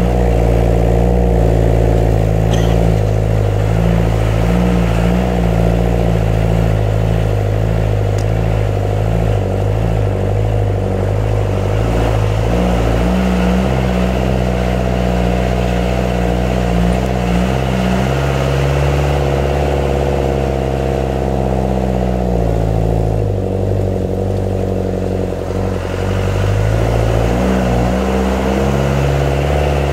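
Off-road jeep's engine running under load on a rough track, its pitch shifting down and up a few times as the revs change.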